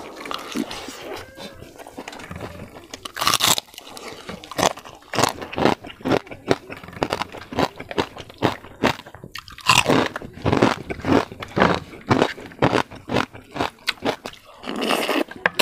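Close-up chewing of crispy fried pork skin (pork rinds): a fast, uneven series of sharp crunches, with one louder bite about three seconds in.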